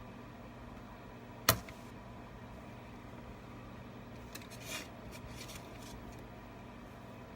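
A single sharp click about a second and a half in, then a few faint ticks and rustles, from hand tools and adhesive tape being handled while taping the edges of an iPad frame. A steady low hum runs underneath.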